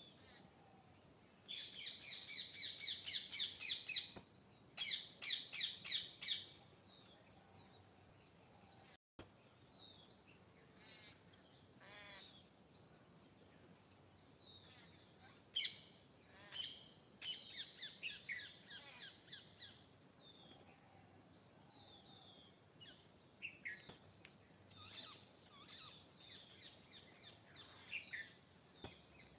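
Several songbirds singing: the loudest is a fast run of repeated high notes in two bursts during the first six seconds, followed by scattered short chirps and brief phrases from other birds.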